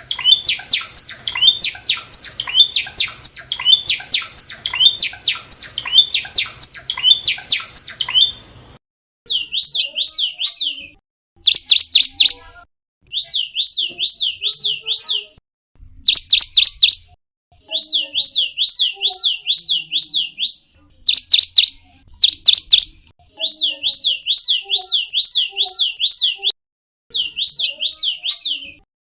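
Cinereous tit (gelatik batu) singing, a series of high, sweeping notes repeated rapidly. They come thickly for about the first nine seconds over a faint low hum, then in short phrases of four to six notes with brief pauses between.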